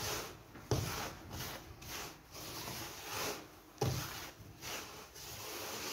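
Dry semolina, coarse and medium grades, being mixed by hand in a wide wooden bowl: rhythmic rustling swishes of grain rubbing over the wood, about two sweeps a second. Two soft thuds come under a second in and again near four seconds in.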